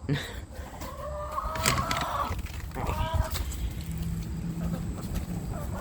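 Hens clucking, with a long drawn-out call about a second in and a shorter call around three seconds.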